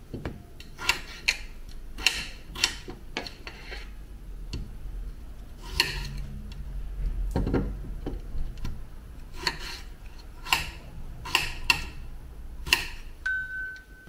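Kitchen knife chopping peeled potatoes on a cutting board: irregular sharp knocks each time the blade goes through and hits the board.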